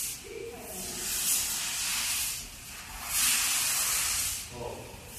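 Compressed air hissing from an automatic assembly machine's pneumatics, in repeated bursts of one to two seconds with short pauses between them.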